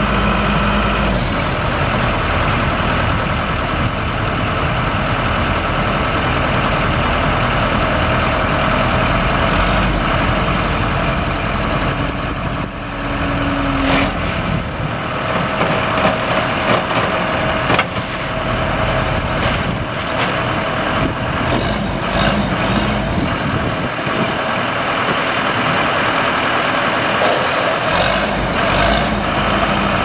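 John Deere 310J backhoe's 4045DT four-cylinder turbo-diesel running, with a high whine whose pitch drops and rises several times. A few sharp knocks come in the middle and near the end.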